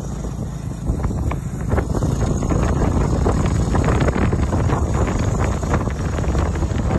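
Wind buffeting the microphone while riding a motorcycle along a dirt road, a steady rumble with the bike's engine running underneath.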